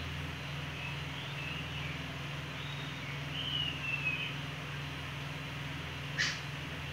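Room ambience: a steady low hum, with faint bird chirps in the background and a short, sharp chirp about six seconds in.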